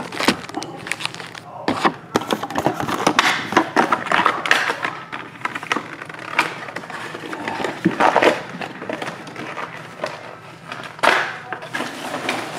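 Foil-wrapped trading card packs crinkling and clattering as they are pulled out of their box and stacked: a run of sharp rustles and light taps.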